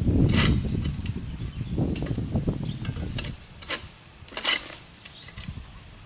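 Steady high-pitched insect drone, with a loud low rumble over the first three seconds and several short sharp clicks scattered through.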